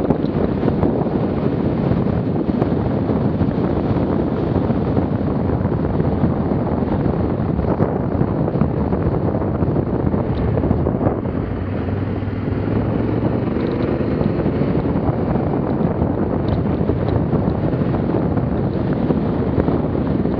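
Wind buffeting the camera microphone over a Yamaha Ténéré 700's parallel-twin engine running as the motorcycle rides along a dirt track. The engine's tone shows through a little more about twelve seconds in, when the wind noise dips.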